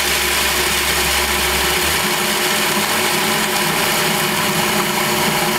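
Food processor motor running steadily at full speed, its blade grinding walnuts down to a fine meal.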